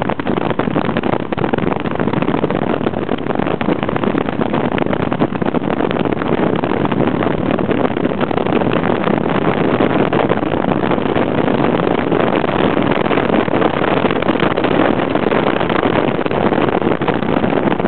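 Steady, loud running noise of a moving vehicle, mixed with wind rushing over the microphone.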